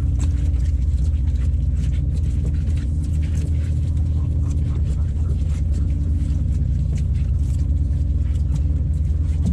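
A fishing boat's engine running steadily, heard on deck as a low rumble with a constant drone, with scattered clicks and knocks of gear and footsteps on the deck.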